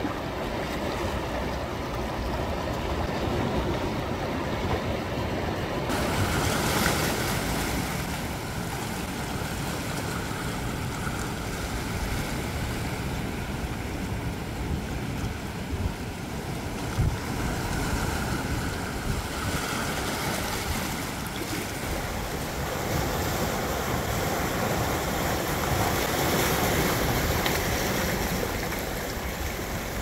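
Sea waves washing in among shoreline rocks: a steady rush of surf that swells and eases as each wave comes in and drains back.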